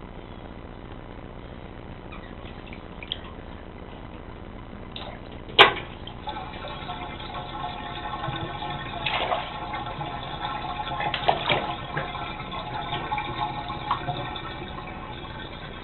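A sharp knock about five and a half seconds in, then bathtub water draining down the plughole, a gurgling rush that gets louder after the knock.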